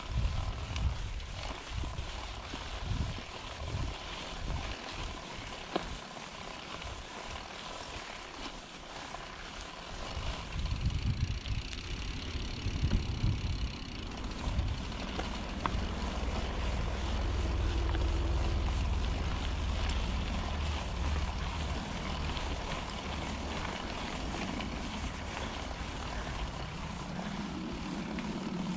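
Wind buffeting a handlebar-mounted action camera's microphone as a mountain bike rolls down a dirt trail, with tyre noise on the dirt and a few short knocks as the bike goes over bumps. The rumble gets steadier and louder past the middle.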